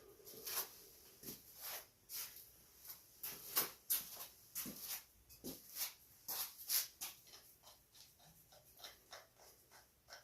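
Faint, irregular clicks and light taps, coming quicker and softer near the end.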